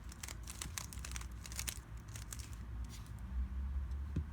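A Rubik's cube's plastic layers being turned quickly by hand: a rapid run of clicking, clacking turns that thins out after about two seconds, while the G permutation is executed as the final step of the solve.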